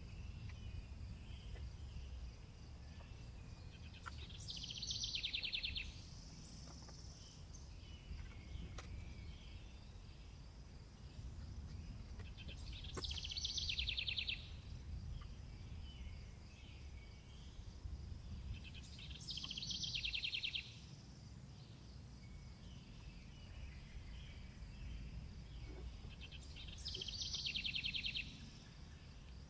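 A songbird singing four short trilled phrases, one every six to eight seconds, over a low steady background rumble.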